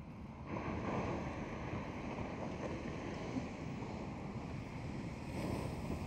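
Steady rush of wind and ocean surf, stepping up in loudness about half a second in.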